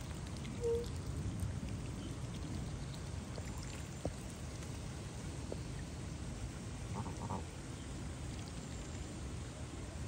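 Canada goose dabbling at the water surface, its bill making small wet slurping and filtering sounds over a steady low rumble. A short clear note sounds about a second in.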